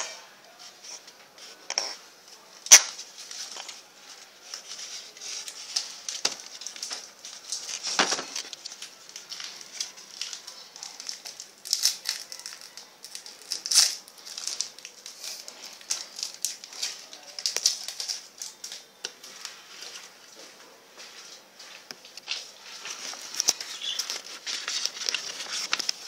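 Close-up rustling, scraping and crackling as a tokay gecko and the phone rub and shift against a perforated basket, with scattered small clicks. A few sharper knocks stand out, the loudest about three seconds in.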